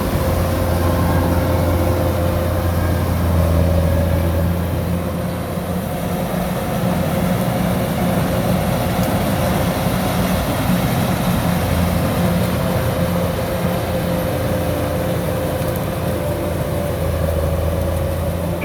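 Kubota DC-105X combine harvester running steadily as it cuts rice: a deep diesel engine hum with a steady higher whine from the machinery over it.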